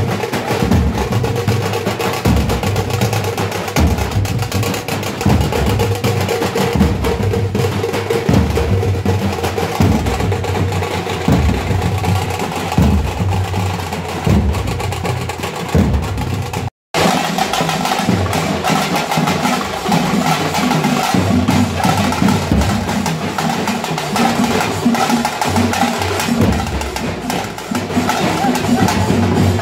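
A troupe of tamate frame drums played with sticks in a fast, dense rhythm, sharp slaps over deep beats. The sound drops out for an instant a little past the middle.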